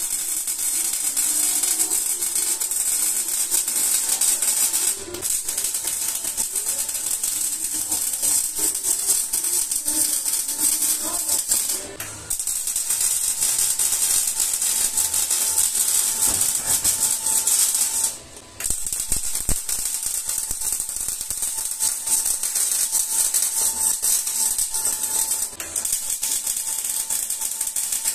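MIG welding arc on stainless steel pipe, with solid 308 wire, giving a steady fast crackle that breaks off briefly four times when the arc stops.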